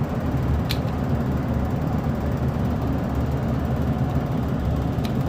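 Two short sharp snips of tin snips cutting through stiff plastic condensate drain hose, one about a second in and one near the end, over a steady low drone.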